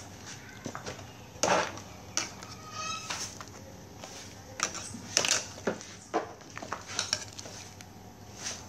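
Metal ladle stirring soup in a metal stockpot, with irregular clinks and knocks against the pot's sides, the loudest about one and a half seconds in.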